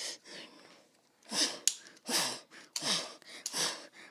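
A child's breathy huffing, made with the mouth: about five short, noisy puffs of breath in a row, each about two-thirds of a second apart.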